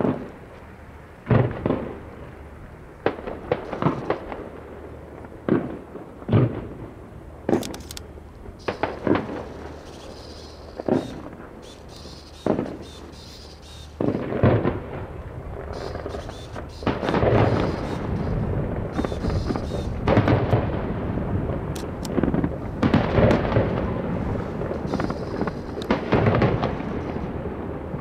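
Fireworks display: single shells bursting with sharp bangs about once a second or so, then from about halfway a denser barrage of booms and crackling that runs on.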